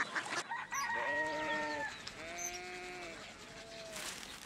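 Roosters crowing: a long crow of about a second and a half, then a second, shorter crow and a brief third call. Near the end comes a rustle of newspaper pages.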